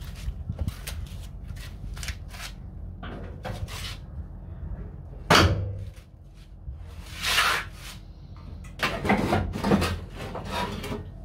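Metal knocks and clunks from a VW Beetle's front bumper bar as it is worked free and lifted off, with one sharp loud knock about halfway through, a brief scrape a little later and a cluster of knocks near the end.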